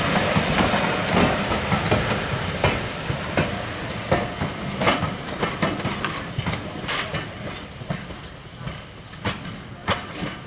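Railway coaches rolling over rail joints and pointwork, a clickety-clack of wheel clicks over a running rumble, fading as the train draws away.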